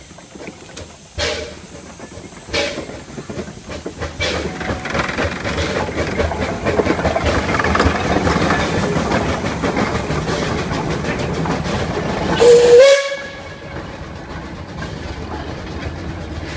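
Climax geared steam locomotive no. 1694 pulling away: a few separate sharp exhaust puffs give way to fast, continuous chuffing and steam hiss with mechanical clatter. About twelve seconds in, a short, loud steam whistle blast rises in pitch and cuts off sharply. After it, the carriages roll by with a steadier, quieter running noise.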